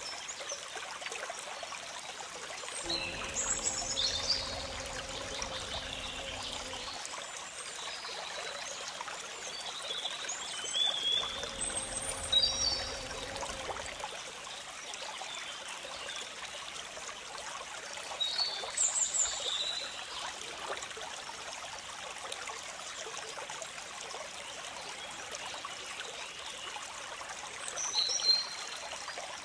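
Steady trickling of running water, as from a small stream, with small birds chirping briefly in four short spells, the loudest near the end.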